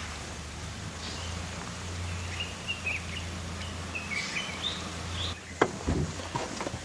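Short, faint bird chirps and twitters over a steady low outdoor rumble, followed by a few soft knocks near the end.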